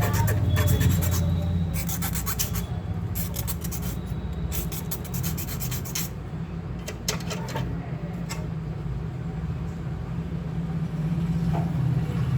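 Scraping, rubbing and clicking of hand tools working on a Bluetooth speaker's casing, in bunches over the first half, over a steady low hum.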